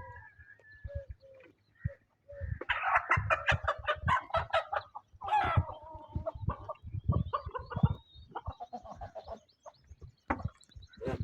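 Domestic fowl calling loudly: a long call about two seconds in, a second loud call right after it, then a run of shorter clucking calls.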